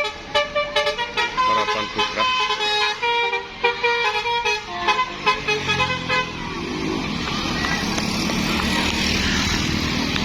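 A bus's telolet horn plays a quick melodic run of short toots for about five seconds. Then the bus engine revs up with a rising pitch and keeps running loudly.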